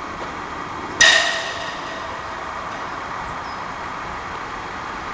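A football slams into metal about a second in: one loud clang that rings for under a second before fading.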